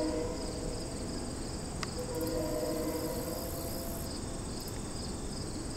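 Insects chirping in a steady pulsing rhythm, with a Nathan Airchime K3L three-chime train horn sounding faintly in the distance: its chord fades out at the start and sounds again for about two seconds in the middle.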